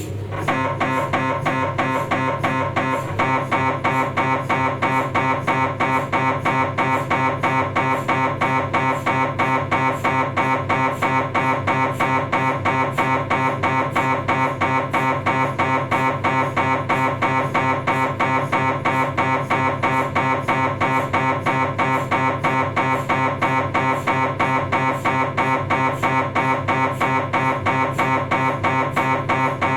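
Philips 1.5-tesla MRI scanner's gradient coils running a STIR sagittal sequence: a loud, fast, evenly repeating pitched knocking that starts at once and fills out about three seconds in.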